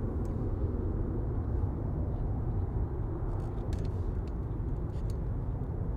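Boeing 747-400 jet climbing away at a distance: a steady low rumble of its engines.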